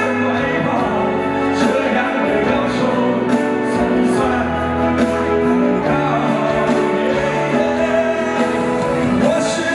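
A male vocalist sings live into a handheld microphone, holding sustained notes of a melody over instrumental accompaniment.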